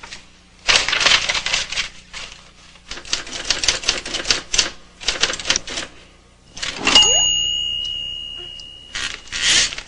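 Typewriter keys clattering in quick bursts of strokes. About seven seconds in comes a loud carriage-return strike with a bell ding that rings on and fades for about two seconds, then the typing starts again.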